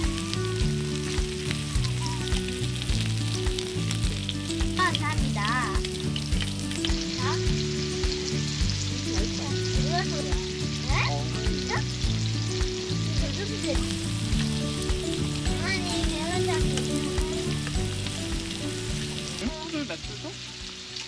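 Thin-sliced pork belly and shrimp rolls sizzling as they fry in a pan, with a steady crackling hiss. Background music with a bass line and a steady beat plays over it.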